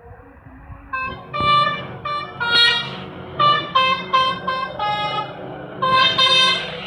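Telolet musical air horn playing a quick tune of short notes that jump between several pitches, starting about a second in, over a steady low hum.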